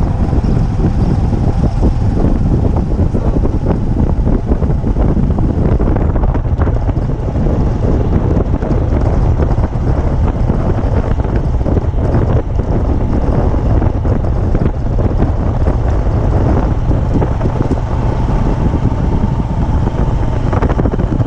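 Heavy, steady wind buffeting on the microphone, a dense low rumble with no clear tone or rhythm, as from a camera moving along the road.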